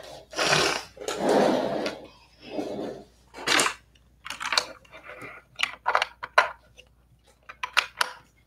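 Handling noise close to the microphone: rustling in the first couple of seconds, then a run of small irregular clicks and knocks as equipment is fiddled with.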